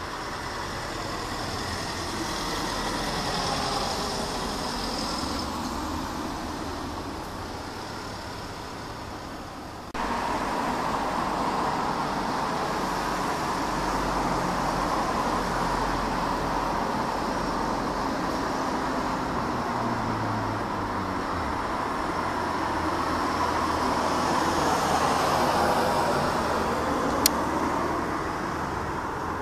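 Steady distant engine roar that swells and eases slowly, with an abrupt jump in level about ten seconds in and one sharp click near the end.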